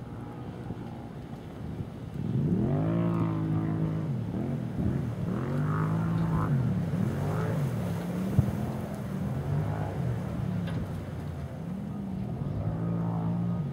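A motor vehicle engine running, its pitch rising and falling smoothly again and again, louder from about two seconds in.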